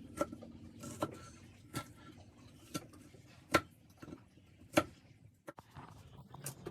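A series of sharp knocks, about six of them at irregular intervals, the loudest about three and a half and nearly five seconds in.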